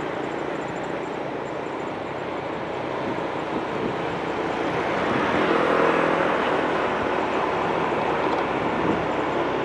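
Steady road noise of a vehicle in motion, an engine-like rumble under a wash of wind and tyre noise, growing a little louder about halfway through.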